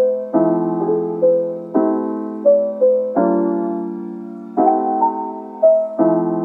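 Background piano music: a slow, gentle melody over chords struck about every second and a half, each note fading away.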